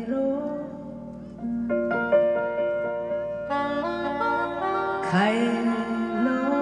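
Live acoustic music: grand piano chords and soprano saxophone, with a woman's voice sliding up into a held sung note about five seconds in.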